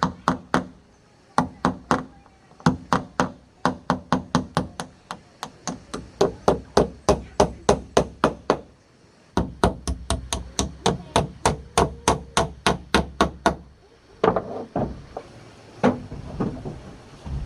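Repeated hard blows on wood, about three a second in runs with short pauses between, sparser near the end.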